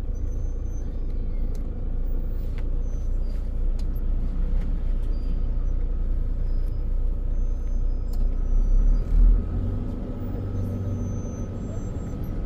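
Motor vehicle running and driving, a steady low rumble of engine and road noise, with a brief louder swell about nine seconds in.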